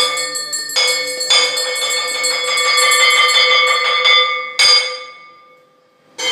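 Small brass puja hand bell (ghanta) rung rapidly, its clapper striking many times a second in a near-continuous peal. A little past four and a half seconds in, a last single stroke rings out and fades away. Another stroke comes right at the end.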